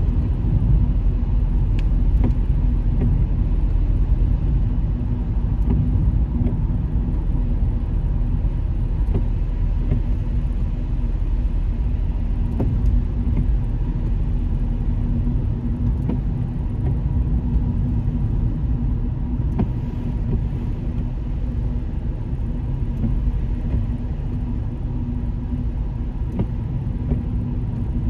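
Car driving at highway speed: steady road and tyre rumble with a constant low hum.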